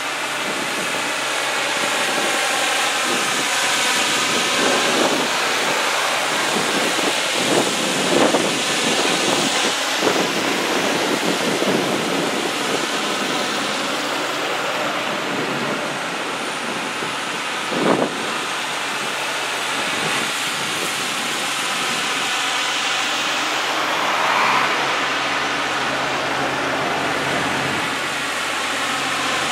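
Tow trucks and other heavy trucks driving past one after another: a steady rush of engine and tyre noise, with a sharp knock a little past halfway.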